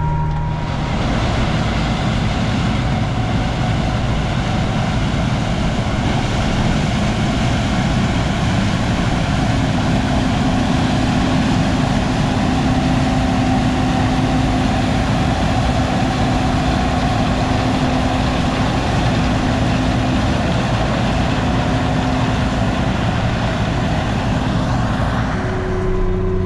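Heavy diesel farm machinery running hard with a loud, even noise, and a steady low hum joining in for about ten seconds in the middle.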